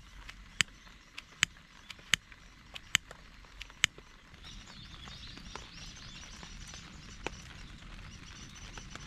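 A campfire being started in the rain: a run of sharp snaps and pops, then a steady hiss that sets in about halfway through.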